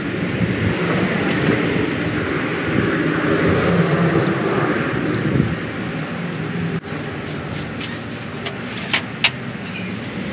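A motor vehicle's engine running steadily, easing off after about six seconds. A few sharp clicks follow near the end.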